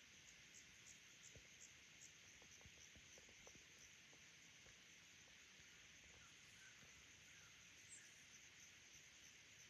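Near silence: faint outdoor ambience with a distant insect's high, thin chirping, pulsing about twice a second in the first couple of seconds, and a few faint clicks.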